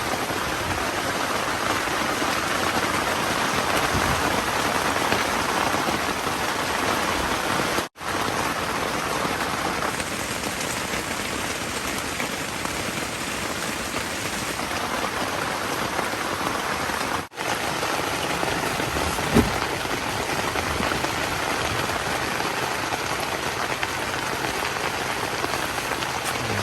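Steady rain falling, an even hiss of drops. The sound cuts out for an instant twice. A single soft thud comes about two-thirds of the way through.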